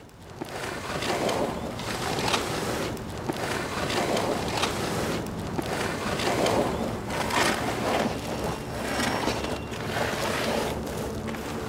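A plastic trash bag dragged across asphalt in repeated pulls, its rustling scrape swelling in swishes about once a second. A low steady hum runs underneath.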